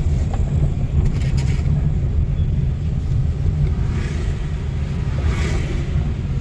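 Car driving slowly, heard from inside the cabin: a steady low rumble of engine and road noise. Two brief hissy swells come about four and five and a half seconds in.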